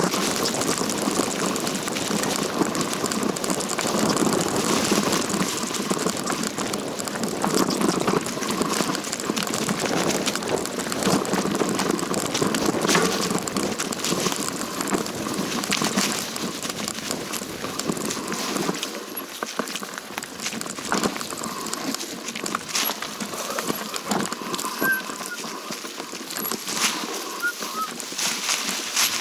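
Continuous crunching and rustling of a hiker's footsteps on a dry, leaf-strewn mountain trail, with dense irregular crackles throughout, easing somewhat past the middle.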